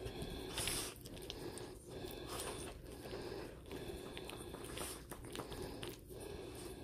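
Faint rustling and soft scuffing as a small shaggy dog is petted and shifts about on a fleece blanket, with a few small clicks.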